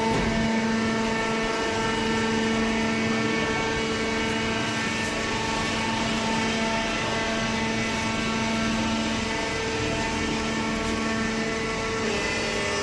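Hydraulic baler running: a steady machine drone made of several steady tones over a noisy hum.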